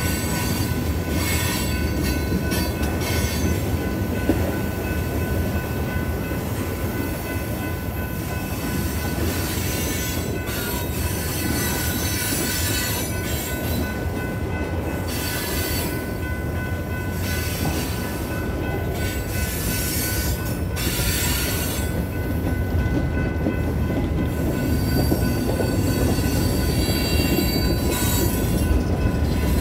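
Freight train cars rolling steadily past, a continuous rumble from the wheels on the rails with a high steady wheel squeal over it.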